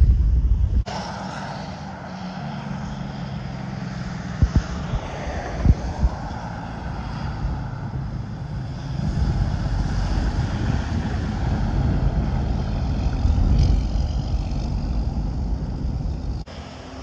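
Heavy diesel dump truck approaching and passing close by as it turns off the highway, its engine and tyres rising to a peak about ten to fourteen seconds in. Two short sharp knocks about four and a half and six seconds in.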